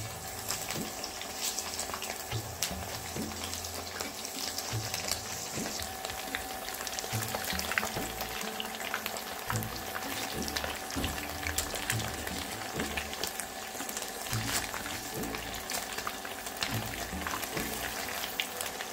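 Slices of homemade cheese shallow-frying in hot oil, a steady sizzle with many small crackles and spits. Now and then a slotted metal spatula clicks against the nonstick pan as the pieces are turned.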